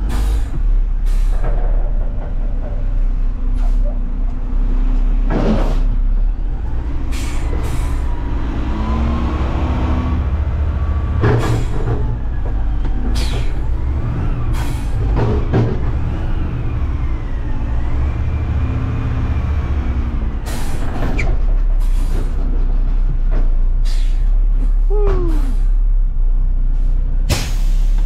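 Front-load garbage truck's diesel engine running, revving up for a stretch in the middle while a whine rises and falls as the hydraulics work. Repeated short air hisses and clanks come throughout.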